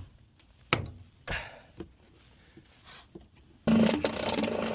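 Two sharp metallic knocks on the sheet-metal air handler casing, then near the end a power tool starts cutting, a sudden loud steady noise with a high whine.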